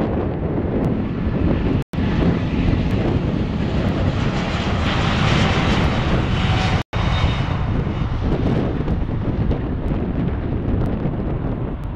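Boeing 787 Dreamliner's Rolls-Royce Trent 1000 turbofans at takeoff thrust on the takeoff roll: a loud, continuous jet rumble that swells to its loudest with a rising hiss around the middle, then eases as the plane moves off down the runway. The sound cuts out for an instant twice.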